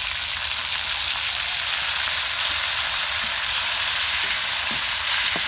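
Chopped tomatoes sizzling steadily in hot oil with garlic and ginger in a kadai, just after being added. A wooden spatula stirs them, with a few light knocks near the end.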